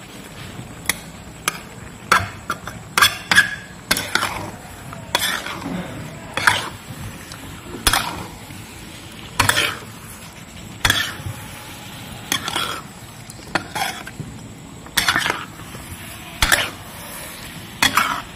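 Spatula scraping and knocking against a metal wok while squirrel meat in thick soy sauce is stirred, the strokes coming irregularly about once a second, over a low steady sizzle.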